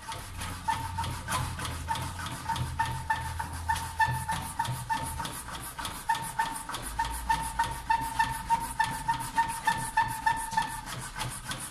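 Hand-operated fuel transfer pump worked in quick, even strokes, about three a second, each stroke giving a squeak and a click, as it draws old petrol out of the car's fuel tank through a hose.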